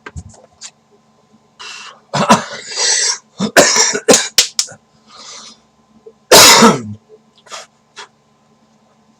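A person coughing and clearing the throat in a string of short loud bursts, the loudest about six and a half seconds in.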